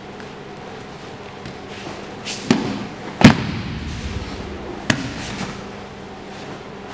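Sharp thumps of grapplers hitting a jiu-jitsu mat during a takedown demonstration: three impacts over about two and a half seconds in the middle, the second the loudest.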